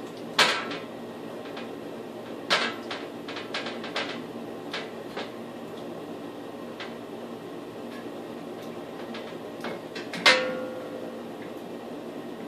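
Metal parts of a vanity light fixture clicking and knocking as it is fitted and fastened to its wall mount. There is a loud knock just after the start, a run of smaller clicks a couple of seconds in, and a loud clank with a brief ring near the end.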